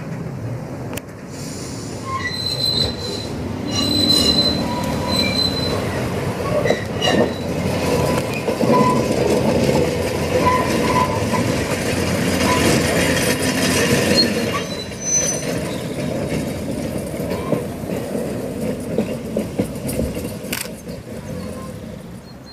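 Vintage electric tram passing close by: steel wheels rumbling and clattering on the rails, with high thin wheel squeals early on as it comes round the curve. The sound swells as it passes and fades near the end as it moves away.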